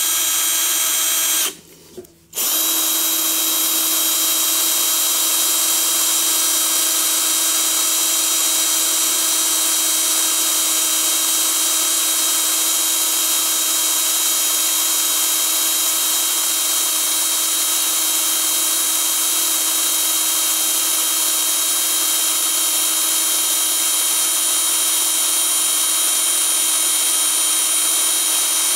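Handheld electric drill running at an even, steady speed with a small bit, drilling out a sheared stud in an exhaust manifold. It stops briefly about a second and a half in, then starts again and runs without a break.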